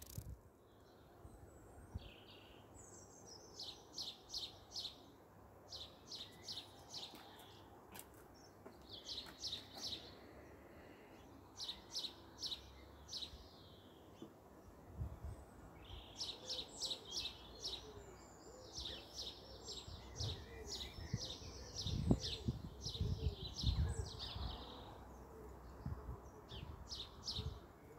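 Garden songbirds singing in short phrases of quick repeated high notes, with a few low thumps, the loudest just after the middle.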